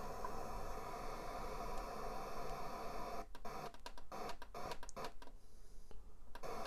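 FM static hiss from a Sony CDF-760 boombox's radio tuner as it is stepped up the band with the tuning button, with no station coming in. From about three seconds in, the hiss keeps cutting out briefly with each tuning step.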